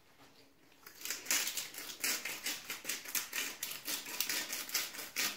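A seasoning dispenser working over salmon fillets in quick rhythmic strokes, about five a second, starting about a second in.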